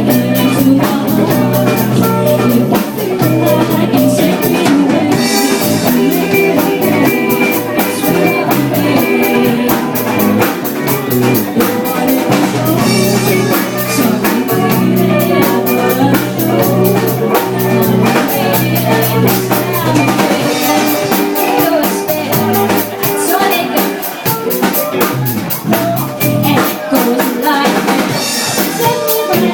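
Band music with a drum kit keeping a steady beat under guitar and other instruments.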